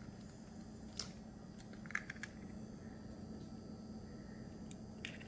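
A few soft clicks and taps, about a second in, around two seconds in and near the end, over a faint steady low hum.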